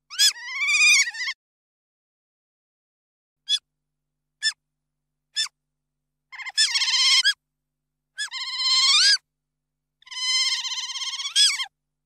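Otter squealing: four long, high-pitched squeals that bend up and down in pitch, with three short chirps between the first and second.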